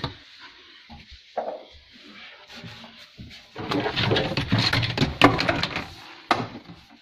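Plastic dishwasher hoses rubbing and scraping as they are pushed by hand through a hole drilled in a cabinet panel. The handling starts quietly, grows into a busy rustle after about three seconds and has one sharp knock about five seconds in.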